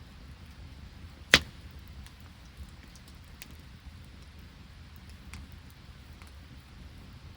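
Open wood campfire crackling with faint scattered ticks and one sharp, loud pop about a second and a half in.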